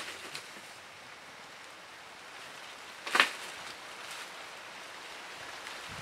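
A single sharp chop of a blade striking wood about three seconds in, over a steady background hiss.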